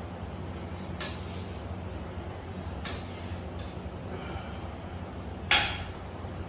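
Plate-loaded lat pulldown attachment working through reps with light clicks from the bar and plates, then one loud ringing metal clank about five and a half seconds in as the weight plates come down at the end of the set. A steady low hum lies under it.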